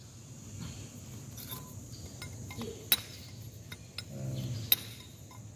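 Combination wrench clinking against the metal body of an excavator's hydraulic piston pump while a fitting is worked loose: a few sharp metal clicks, the two loudest about three seconds in and near the end.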